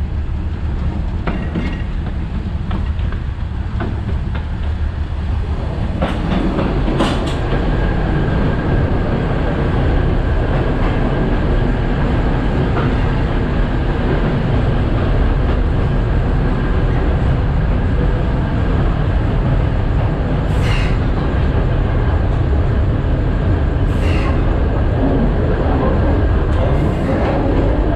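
Alishan Forest Railway train running, heard from the cab: a steady rumble of wheels on track that grows louder about six seconds in, with a faint steady whine and a few short, high hissing squeals.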